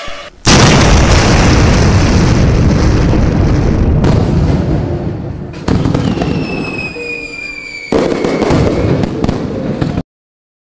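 Explosion-style sound effects from an animated intro. A loud boom about half a second in is followed by a long rushing noise that slowly fades. Further sudden hits come about four, six and eight seconds in, with a falling whistle between the six- and eight-second hits, and everything cuts off abruptly about ten seconds in.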